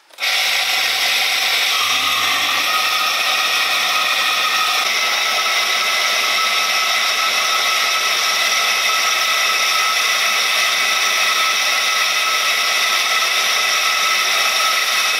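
Small electric motor and fan running off a homemade 12 V-to-220 V inverter: a loud, steady whir and buzz with several steady high tones in it. It starts suddenly the moment the battery lead is connected.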